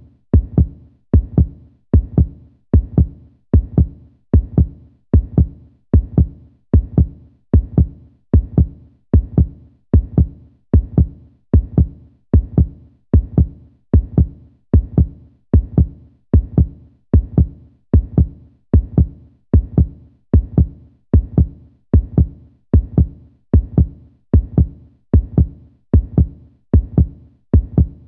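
Heartbeat sound effect: a steady, deep lub-dub, each beat a pair of thumps, a little over one beat a second.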